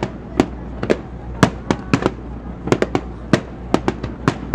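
Fireworks display: an irregular series of sharp bangs from bursting shells, about two or three a second.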